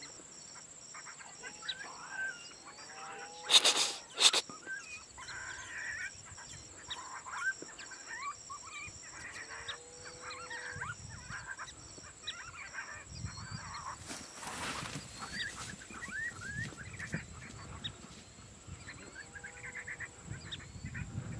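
Coyotes yipping with short wavering howls in a chorus, with a steady high tone above. Two sharp knocks come about three and a half and four seconds in, and a brief rush of noise comes about two-thirds through.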